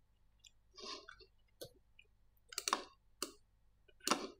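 Computer mouse button clicking several times, separate short clicks spread over a few seconds.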